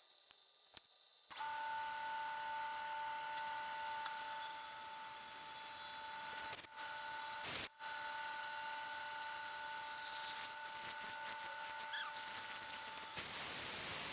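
Kearney & Trecker rotary head milling machine running with a steady whine that starts abruptly about a second in. It cuts out for a moment twice around the middle, and near the end it gives way to an even hiss.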